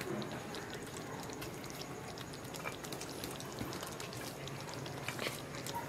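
Thick cornflour gravy simmering in a wok on very low heat, small bubbles popping steadily, with a few soft plops as fried vegetable manchurian balls are dropped in.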